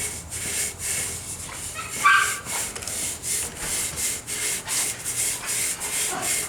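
Sandpaper rubbed back and forth on a motorcycle handlebar in quick, even strokes, about three a second, clearing off leftover grip glue. A brief squeak sounds about two seconds in.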